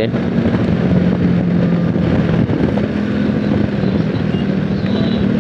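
A 70cc single-cylinder motorcycle engine running steadily at road speed, heard from the rider's seat with wind rushing over the microphone; the engine note rises a little about halfway through.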